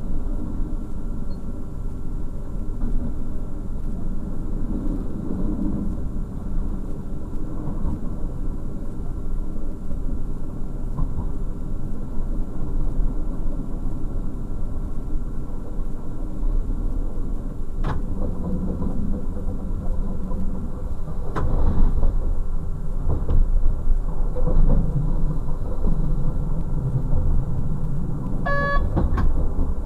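DB Class 628 diesel railcar running along the track, heard from the cab: a steady low rumble of engine and wheels, with a few sharp clacks in the second half and a brief high-pitched tone near the end.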